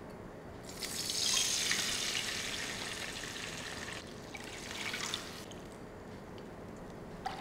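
Water pouring from a glass jug into a non-stick kadhai, starting about a second in, strongest at first and then tapering, with a shorter surge about five seconds in.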